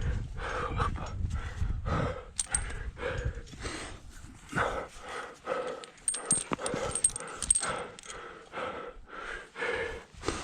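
A climber breathing hard in quick, loud pants, about two breaths a second, from the effort of squeezing up a tight rock chimney, with a few sharp clicks and scrapes of gear or rock.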